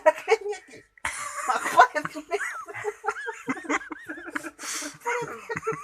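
People's voices talking and laughing, with a cough.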